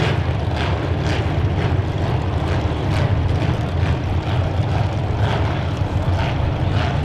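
Engines of demolition derby compact cars running loudly and steadily, with short sharp crashes of cars hitting each other scattered through.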